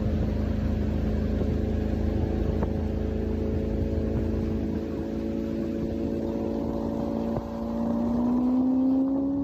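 Bass boat's motor running steadily, its pitch rising near the end as it speeds up.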